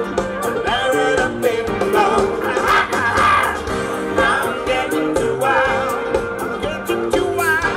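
Live band playing a pop-rock song with a steady drum beat and sung vocals.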